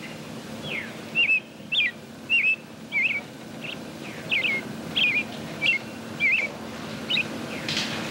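About a dozen short, bird-like whistled chirps, each a quick flick up and down in pitch, coming at a steady pace of just under two a second, over a faint steady low hum.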